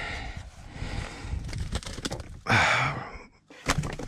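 A shot dove, still alive, flapping and rustling its wings while held over a plastic cooler, with a man's short sigh about two and a half seconds in and a few sharp taps near the end.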